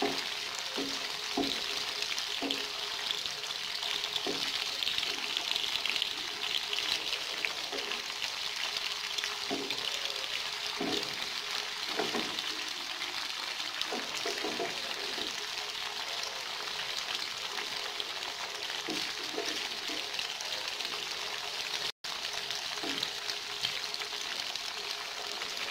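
Cubes of white tofu sizzling in hot oil in a nonstick frying pan, a steady hiss, with a wooden spatula knocking and scraping against the pan now and then as the cubes are turned. The sound cuts out for an instant near the end.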